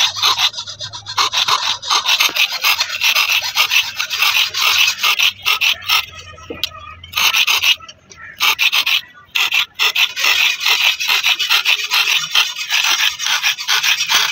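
A hand file rasping back and forth across the edge of a steel sickle blade, sharpening its serrated teeth, in quick repeated strokes with a few brief pauses.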